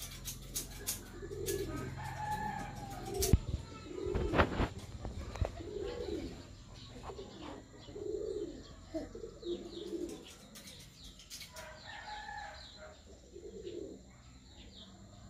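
Doves cooing in soft, low, repeated calls every second or two, with other birds calling and chirping now and then. A couple of sharp clicks come about three and four seconds in.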